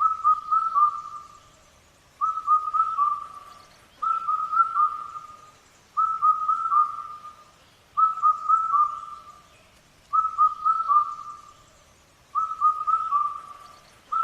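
A bird calling: a short phrase of quick whistled notes, repeated about every two seconds, seven times.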